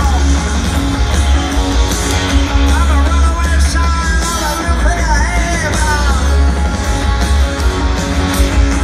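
Live punk rock band playing through a large concert PA, with distorted electric guitar, heavy bass and drums and a male singer's vocals coming in and out, heard from among a big open-air crowd.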